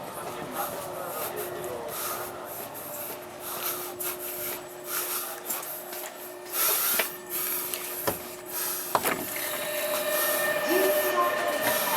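Inside a JR West 683-series electric train car: a steady electrical hum with repeated hisses of air. About nine seconds in, higher steady tones set in and the sound grows louder as the train gets under way.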